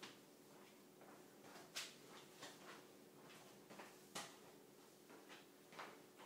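Faint, irregular taps and knocks, about half a dozen, from a person moving about on a tiled floor and handling exercise equipment, over a low steady hum.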